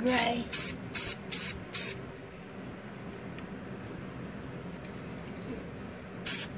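Aerosol can of gloss enamel spray paint fired in five short spurts in the first two seconds, laying paint onto the water in a dip tub for hydro-dipping.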